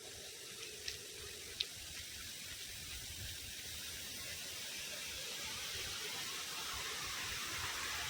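Rushing water: a steady, even hiss that grows gradually louder, with a couple of faint ticks in the first two seconds.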